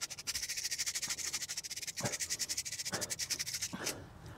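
Hand wire brush scrubbing the front brake caliper of a Vauxhall Vectra C in fast, even back-and-forth strokes, cleaning off rust and brake dust. The scrubbing stops shortly before the end.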